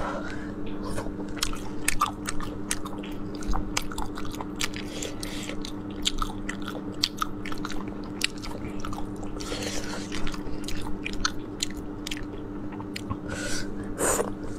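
Close-up eating of sea snails in chili oil: wet sucking and chewing, with many short sharp clicks and smacks all through and a longer slurp about ten seconds in.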